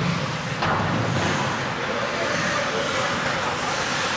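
Ice hockey game sound in a rink: a steady noisy wash with voices in it, and one sharp impact about half a second in.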